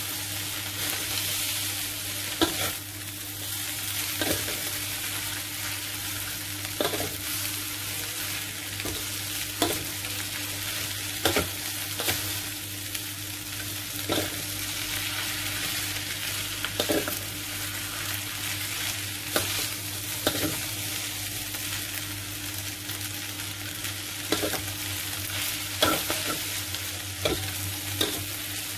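Rice vermicelli and vegetables being stir-fried in a metal wok: a steady sizzle, with the metal spatula scraping and knocking against the wok every second or two.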